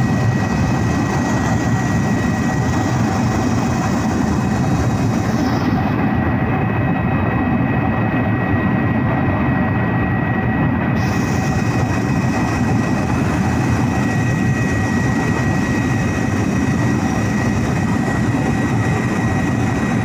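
Aircraft engine noise in flight: a loud, steady, deep drone with a thin, high, constant whine over it.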